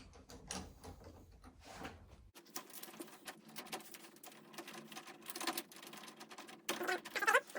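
Phillips screwdriver turning the mounting screws into a new door handle by hand: small irregular clicks and scrapes of metal on metal.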